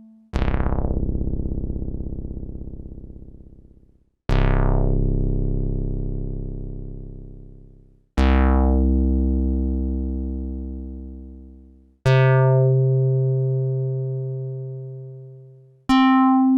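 Yamaha TX81Z FM synthesizer bass patches playing single notes about every four seconds, each a different sound. Every note has a bright, sharp attack that dies away quickly, leaving a lower tone that fades out over about four seconds; the fifth note starts near the end.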